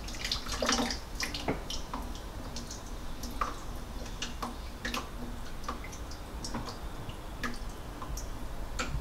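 Salt-water brine dripping and trickling out of a tilted glass bowl into a stainless steel sink as salmon eggs are strained by hand: scattered irregular drips and small ticks.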